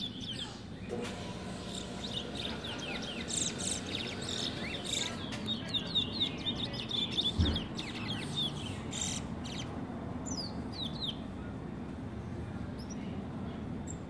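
Caged 'brown bird' songbird singing its roll: rapid runs of short, falling chirps, thinning out to a few higher notes later and then pausing. A low thump sounds about halfway.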